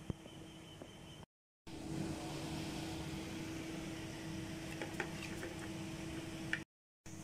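A steady mechanical hum, cut by two brief gaps of silence, with a few light clicks and taps, the sharpest just after the start and near the end.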